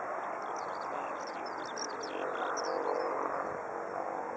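Small birds chirping in quick, high twitters, mostly in the first three seconds, over a steady background rush.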